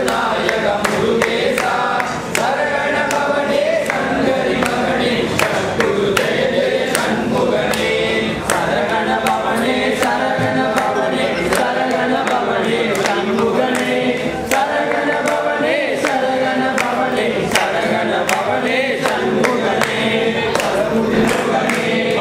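A group of men singing a devotional hymn together from hymn books, with a sharp regular beat, about two strokes a second, keeping time.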